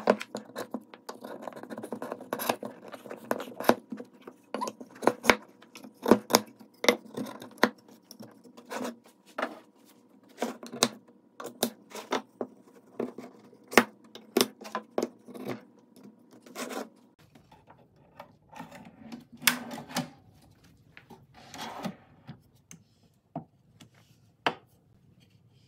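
Wooden router-bit holder blocks and router bits knocking and clicking as they are handled and set down on a wooden workbench, several sharp knocks a second. After about 17 seconds the knocks come more sparsely.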